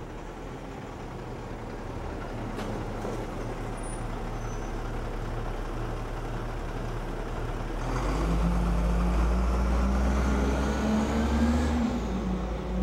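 Road traffic: motor-vehicle noise slowly growing louder, then a heavy vehicle's engine drone, loudest from about eight seconds in.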